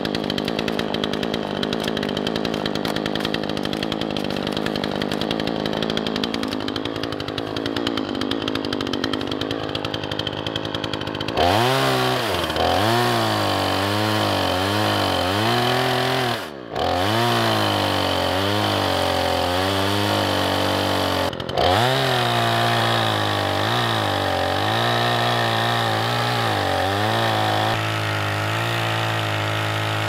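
Remington 46cc two-stroke chainsaw running at full throttle while cutting into a standing tree trunk. After about eleven seconds the engine pitch dips and recovers about once a second as the chain bites into the wood, with two brief sudden breaks in the sound.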